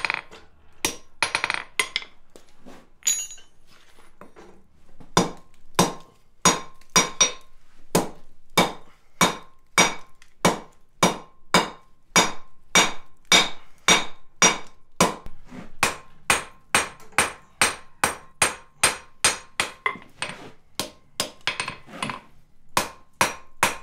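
Blacksmith's hand hammer striking a red-hot flat steel bar on an anvil. A few scattered blows are followed, from about five seconds in, by steady strikes about two a second, each with a short metallic ring.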